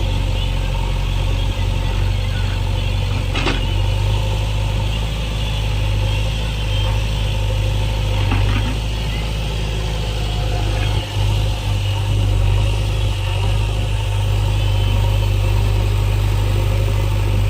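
Backhoe loader's diesel engine running steadily at a low, even speed, with a couple of faint knocks.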